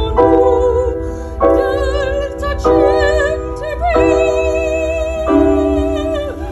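Operatic singing with wide vibrato, held notes over keyboard chords that change about every second and a half.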